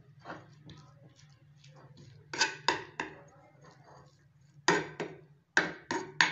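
Spatula patting and pressing shredded raw potato flat in a frying pan: a run of sharp taps against the pan, faint at first and louder and closer together from about two seconds in, over a low steady hum.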